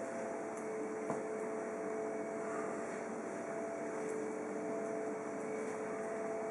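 Steady machine hum over a hiss, holding a few constant tones, with one small click about a second in.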